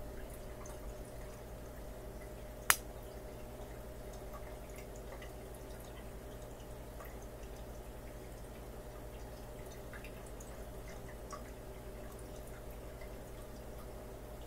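A single sharp, loud click about three seconds in, from a peacock mantis shrimp striking a snail's shell. Under it, aquarium equipment hums steadily, with scattered faint ticks.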